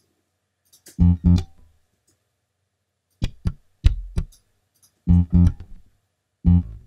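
Ample Bass virtual electric bass playing a line of short, low plucked notes, mostly in pairs. A few sharper percussive hits come in around the middle.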